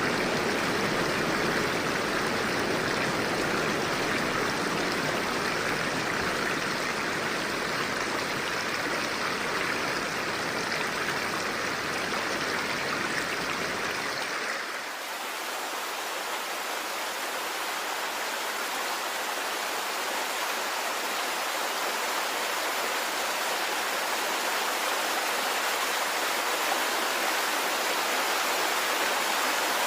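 Flowing river water rushing steadily. About halfway through it changes abruptly to a different, hissier water sound with less low rumble.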